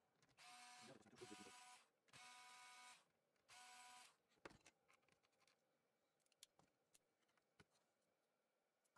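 Small cordless electric screwdriver running in four short whirring bursts as it backs out the laptop heatsink's screws, followed by a few faint clicks of the metal heatsink being handled.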